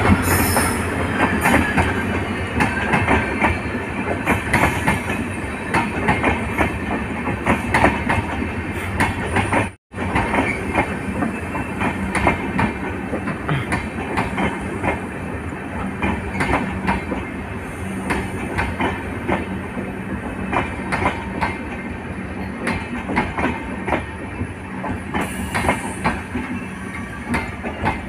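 A long rake of LHB passenger coaches running through behind a diesel locomotive: a steady rail rumble with dense clickety-clack of wheels over rail joints. The sound cuts out for an instant about ten seconds in.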